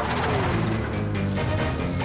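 Cartoon action soundtrack: dramatic background music mixed with crash and explosion effects, and a falling tone in the first half-second.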